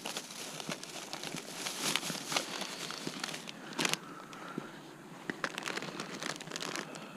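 Irregular crinkling and rustling with scattered sharp clicks, the sound of something being handled.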